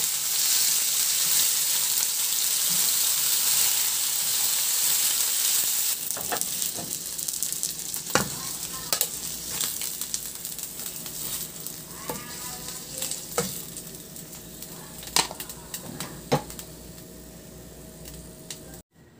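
Chicken breast sizzling in hot oil in a nonstick frying pan as it browns, loudest for about the first six seconds, then quieter as the pieces are lifted out. Several sharp clicks of a metal slotted turner against the pan come in the second half.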